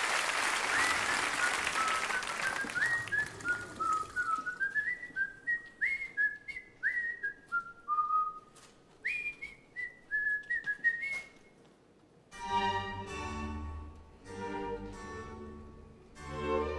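Audience applause dying away, then a tune whistled in short, bouncy notes, some sliding up into the next. About twelve seconds in, orchestral string music begins.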